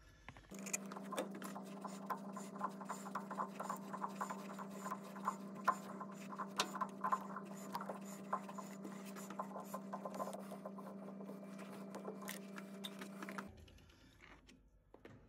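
Metal lathe running with a steady hum while a tap in a tap wrench cuts a thread into the end of an aluminium hammer head, with quick irregular ticking from the cutting. The lathe stops about a second and a half before the end.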